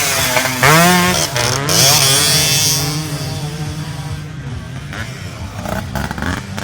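Grasstrack racing motorcycle engines revving, the pitch climbing sharply about a second in, then running on at a steadier, gradually lower pitch.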